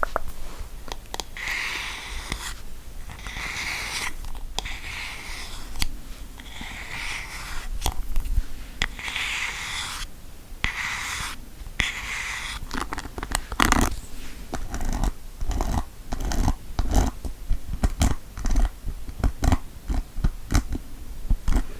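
Slow, repeated scratching strokes, each lasting about a second, on the surface of an object. About halfway through they give way to quick, irregular tapping.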